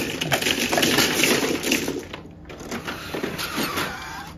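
Plastic mahjong tiles clattering as they are swept into the centre opening of an automatic mahjong table. There is a sharp clack at the start and a dense rattle for about two seconds, then quieter clicking while the table raises the new walls.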